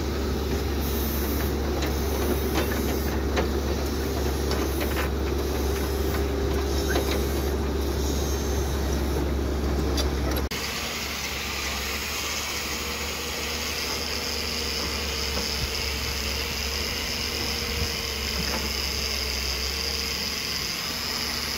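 Steady construction-site background noise: a low rumble with hiss and a few faint knocks. The noise changes abruptly about ten seconds in to a different steady hiss.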